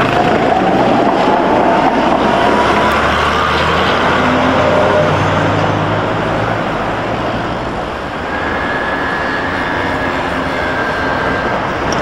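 Street traffic with a tram passing close by: an electric motor whine rises in pitch during the first few seconds over a continuous rumble of wheels and road noise. A thin, steady high whistle comes in during the second half.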